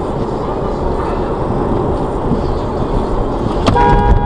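Steady driving noise of a car heard from inside the cabin, with the engine and tyres rumbling on the road. Near the end there is a click, then a car horn starts sounding in a steady held blast.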